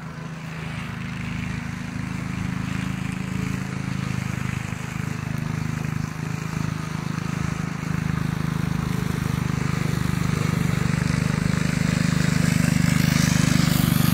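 Small engine of a walk-behind mower cutting tall meadow grass, running steadily and growing gradually louder as the machine comes closer.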